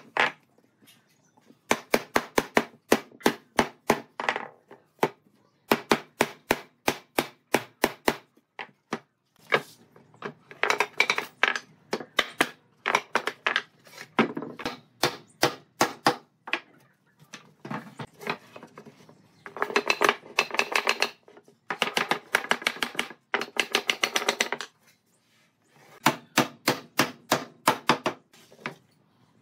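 Rapid runs of sharp knocks on wood, several strikes a second, coming in bursts of two to three seconds with short pauses between.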